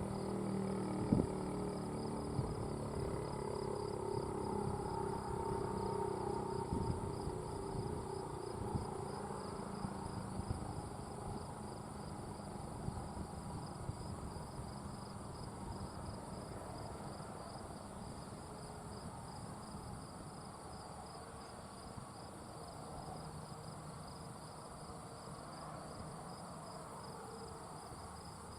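ASC T-135 electromechanical siren winding down after its alert, its tone fading away. Insects buzz steadily in the background.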